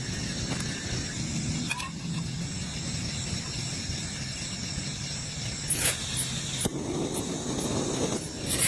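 Steady rain noise, with a few short sharp knocks about six seconds in and again near the end.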